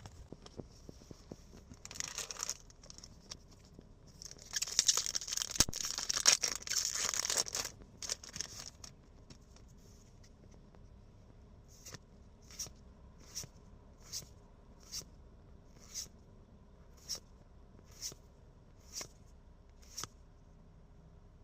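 A foil trading-card booster pack being torn open with loud crinkling. It is followed by cards being slid off the stack one at a time, a short swish about once a second.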